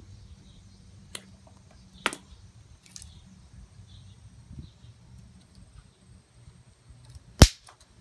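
Charged microwave oven capacitor shorted across its terminals with a wire on a stick, discharging in one sharp, loud pop about seven seconds in. Two fainter clicks come in the first couple of seconds.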